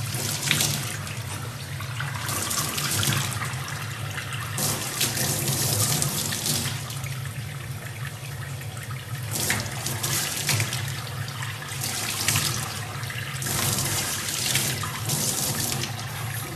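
Tap water running from a faucet into a stainless steel sink, splashing in louder surges every second or two as a baby chimpanzee's hands break the stream.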